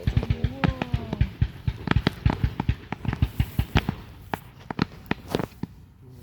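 Fireworks going off: a rapid, irregular string of bangs and crackling pops that thins out over the last couple of seconds.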